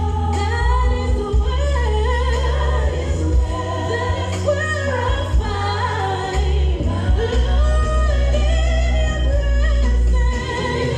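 A woman singing a gospel song into a microphone over amplified backing music with a heavy, steady bass.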